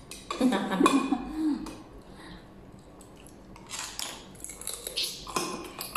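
Spoons and cutlery clinking against bowls and plates during a meal, with a few short clatters in the second half. A voice sounds briefly in the first second or two.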